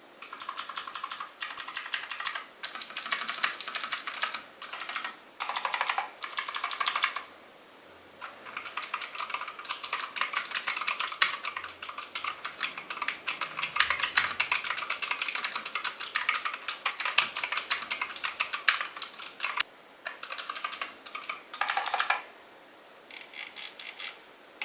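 Typing on a Fantech Atom 96 (MK890) mechanical keyboard with blue clicky switches: fast, dense, noisy key clicks in runs with a few short pauses, softer near the end.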